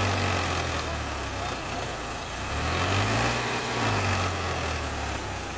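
Eicher 5660 tractor's diesel engine working hard under load, its revs swelling and easing twice as it strains to drag a heavily loaded trailer through deep mud.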